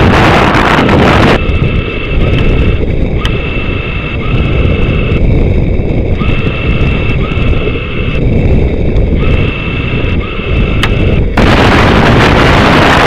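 Loud rushing wind on the rocket's onboard camera microphone, which drops away about a second in. Through the quieter stretch a steady electronic tone beeps in repeated pulses, each under a second long, with two sharp clicks. The loud rushing returns near the end.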